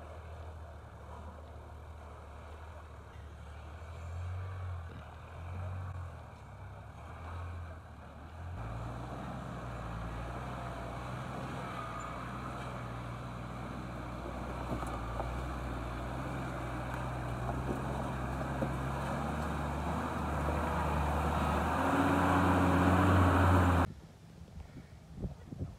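Toyota LandCruiser 80 Series four-wheel drive's engine working on a steep rocky off-road descent: it swells and eases a few times, then settles into a steady drone that grows louder as the vehicle comes closer, and cuts off abruptly near the end.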